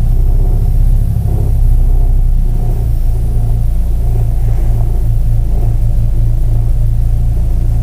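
A Chevrolet Cruze standing with its engine running, a loud low rumble, while the steering wheel is turned, with low creaks from the front-left strut top bearing. The creak comes from that bearing, which the owner believes is clogged with dirt and has grease thickened by the cold.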